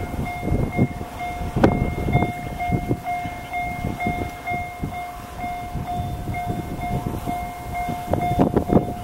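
Railway level-crossing alarm ringing: one electronic tone repeating about twice a second, steady and unchanging. Strong wind buffets the microphone underneath with uneven low rumbling gusts.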